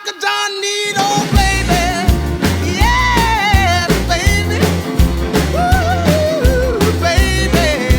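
Rock and roll music: a bass line stepping on a steady beat, with a wavering lead melody above it. The bass comes in about a second in, after a short break.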